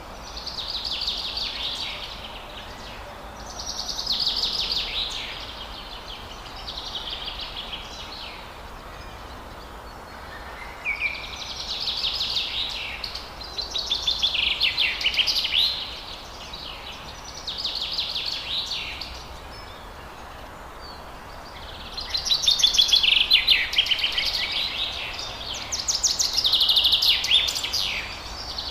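Forest birds singing: a string of rapid, trilled song phrases, each a second or two long, coming every few seconds and loudest near the end, over a steady background hiss.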